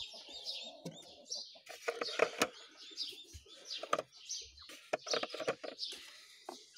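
Baby chicks peeping in a rapid run of short, high chirps, with a few sharp clicks and knocks as eggs are handled in a wooden nest box.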